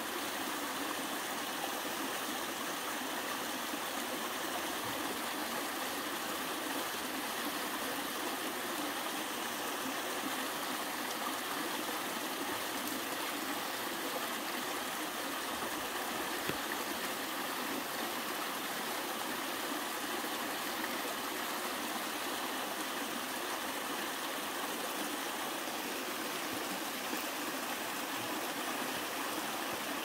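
Mountain stream cascading down a narrow rock chute into a pool: a steady rushing of falling water that holds even throughout.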